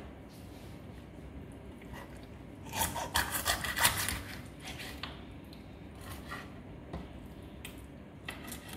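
Raw whole chicken being handled and cut with a small knife on a wooden chopping board, with a short run of scraping and crackling about three to four seconds in, otherwise soft handling sounds.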